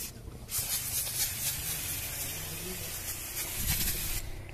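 Würth engine cleaner spraying from an aerosol can onto an engine in one long hiss, starting about half a second in and stopping shortly before the end.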